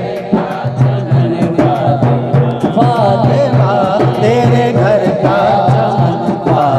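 A man's voice singing a devotional Urdu manqabat into a microphone, with instrumental accompaniment: a steady low drone and regular drum beats.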